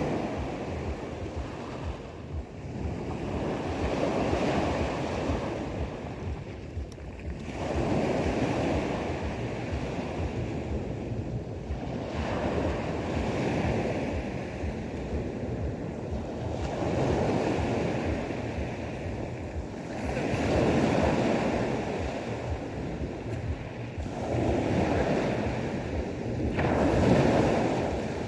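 Sea waves washing onto a shore, the rush of each one swelling and fading every three to four seconds.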